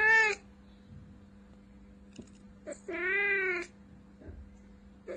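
Domestic cat meowing twice: the loud end of one meow just at the start, then a second drawn-out meow about three seconds in, each rising then falling in pitch.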